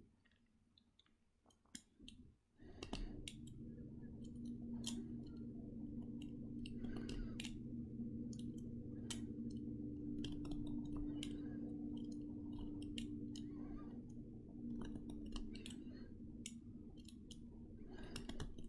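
Metal peeler scraping the thin skin off an avocado seed: irregular light clicks and scrapes, about two and a half seconds in, over a steady low hum.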